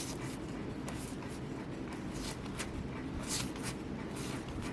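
Yu-Gi-Oh! trading cards being handled and flipped through by hand: a series of short, soft swishes of card sliding over card, roughly one a second, over a low steady room hum.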